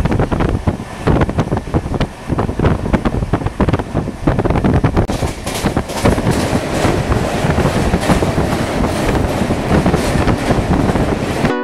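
Express train's coach wheels running fast over the rails, heard from aboard: a dense clickety-clack with metallic rattling. From about halfway the sound grows sharper and brighter as the train crosses a steel truss bridge.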